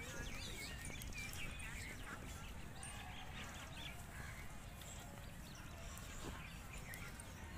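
Birds calling in short chirps, mostly in the first few seconds, over a steady low rumble of wind and handling on the phone's microphone.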